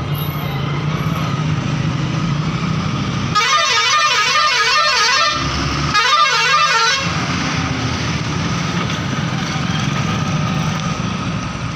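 Two blasts of a vehicle horn with a rapidly warbling pitch, the first about two seconds long starting about three seconds in, the second about a second long just after. Under them runs the steady noise of a motorcycle and road traffic.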